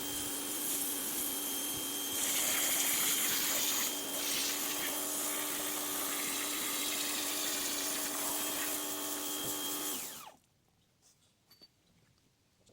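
Pressure washer running: a steady motor whine under the hiss of the spray, a little louder for a couple of seconds. About ten seconds in it is switched off and the motor winds down to near silence.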